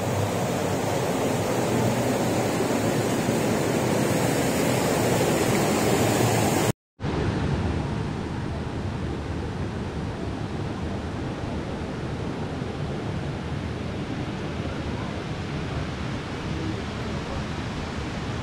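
Steady rushing of a waterfall. The sound cuts out briefly about seven seconds in and comes back duller, with less hiss.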